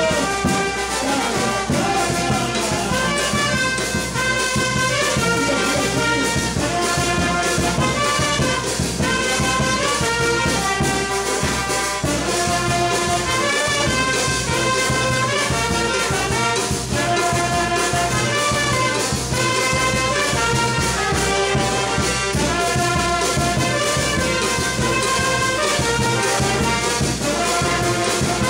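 Live brass band playing: saxophones, trombones and a sousaphone carry the tune over a steady beat of bass drum and cymbals.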